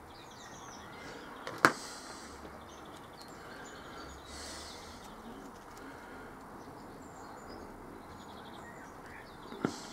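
Faint birdsong over quiet background noise, with two sharp taps of small parts on the work table, one about a second and a half in and one near the end.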